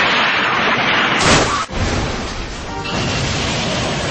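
Cars crashing: loud impacts and crunching noise, with a fresh sharp crash about a second in, mixed with music.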